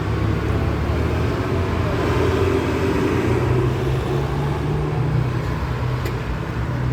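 Motor vehicles running steadily: a low engine hum with road and traffic noise.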